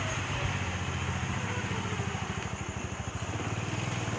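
Small motorcycle engine running steadily, a fast, even putter.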